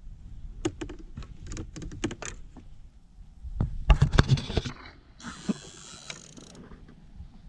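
Rod, spinning reel and boat handling noise while fighting a fish: a run of sharp clicks, then a cluster of heavy knocks about four seconds in, then a high hiss lasting over a second.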